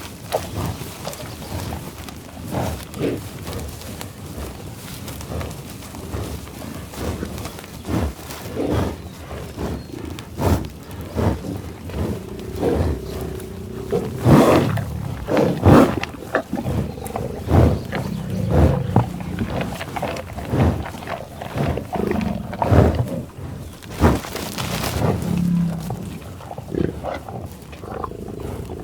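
Buffalo growling and bellowing: a run of short, loud grunts with a few longer low moans in between, loudest around the middle.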